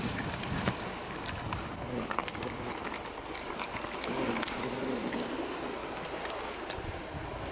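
A cat chewing and tearing at a raw flounder close to the microphone: many short, irregular clicks of biting and gnawing over a steady hiss.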